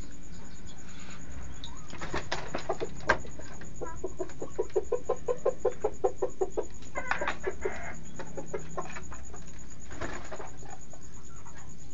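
Domestic fowl clucking: a run of evenly spaced clucks, about five a second for some three seconds, then a short harsher squawk. A few sharp taps come before the clucking, one louder than the rest.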